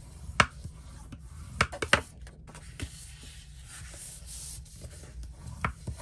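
Bone folder rubbing along a scored fold in cardstock, burnishing the crease, with a few sharp clicks and taps of paper and tool, the loudest about half a second in and two close together near two seconds.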